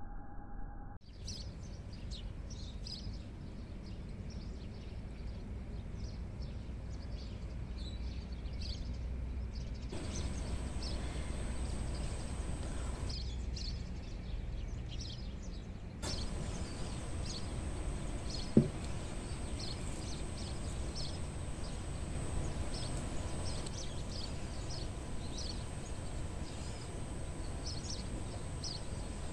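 Background ambience of birds chirping, with short high chirps scattered throughout over a low steady rumble. One sharp knock sounds a little past halfway.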